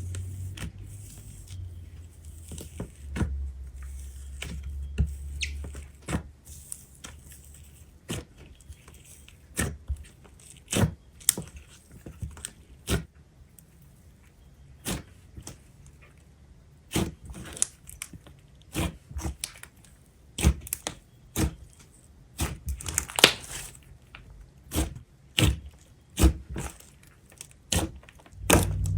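Clay slime being poked, squeezed and stretched by hand, giving irregular sticky clicks and pops, some close together and some a second or more apart. A low hum runs under the first few seconds.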